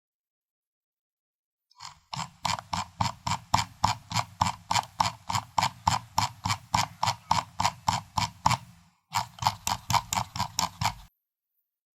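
Computer mouse scroll wheel turned through its notches: sharp, evenly spaced clicks at about five a second. They start about two seconds in, break off briefly near the two-thirds mark, then run on again and stop about a second before the end.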